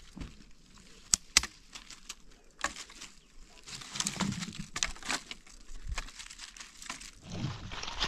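Dry branches and twigs being gathered by hand, crackling and scraping over dry leaves and stones, with two sharp snaps about a second in.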